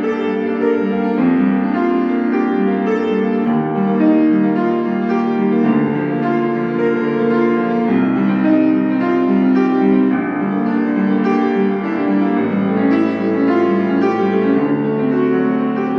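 Solo piano playing a continuous flow of notes at an even level.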